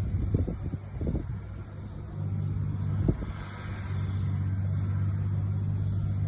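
John Deere 8200 tractor's six-cylinder diesel engine running with a steady low hum. It has a few short knocks in the first second and another about three seconds in.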